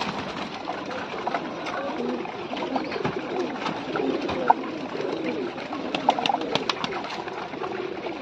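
Domestic pigeons cooing in a low, wavering murmur while pecking grain from a clay bowl, with sharp pecking clicks scattered throughout and a quick cluster of them about six seconds in.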